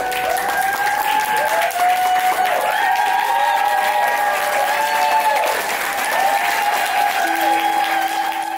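Wedding guests applauding and cheering, with many long whoops from the crowd over steady clapping.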